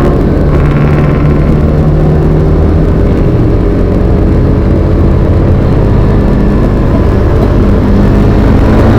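Motor vehicle engine running steadily on the move, a loud continuous drone whose note shifts only slightly, over a heavy low rumble of road and wind noise.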